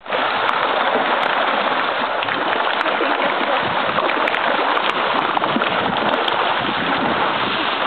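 Sharks thrashing at the surface as they feed on bait, a continuous churning splash of water with many small sharp slaps and crackles.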